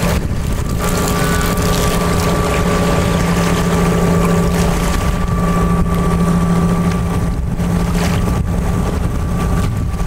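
Steady motor drone holding one pitch, over wind buffeting the microphone.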